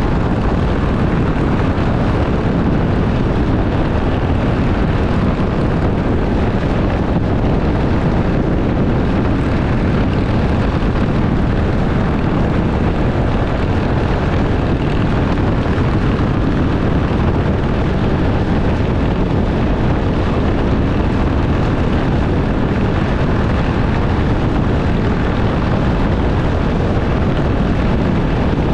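Steady rush of wind and road noise from a motorcycle cruising at highway speed, heard from the rider's own bike.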